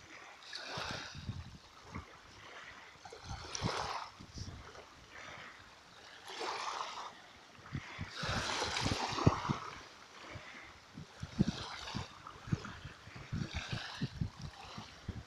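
Small waves lapping and splashing against the shoreline, swelling up every two to three seconds.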